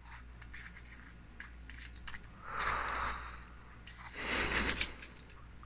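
Small handling noises from a reflex sight being worked in the hands: faint clicks, and two short rubbing, scraping sounds, about two and a half and four seconds in.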